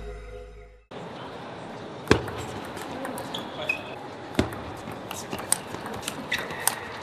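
Intro music fading out within the first second, then a hall's background murmur with sharp clicks of a table tennis ball striking bats and table: a couple of single loud ones, then quicker, closer-spaced clicks. Two brief high squeaks come in the middle and near the end.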